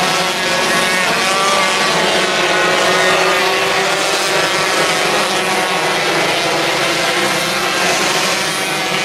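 Engines of a field of 125cc micro sprint cars running laps on a dirt track. Several engines sound at once, rising and falling in pitch as the cars pass.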